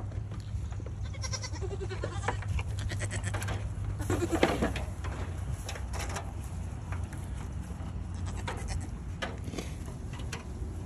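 Goat bleating twice: a short quavering call about a second in, then a louder one about four seconds in, over scattered clicks and rustles.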